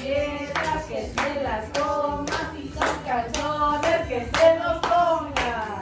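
People singing together with rhythmic hand clapping in time, about two claps a second.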